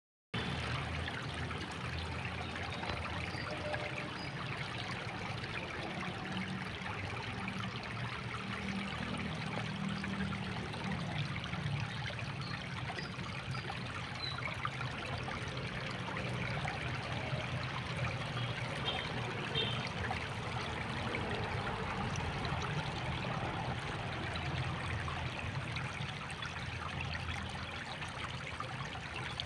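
Steady rush and trickle of shallow seawater washing among coral rocks on the shore.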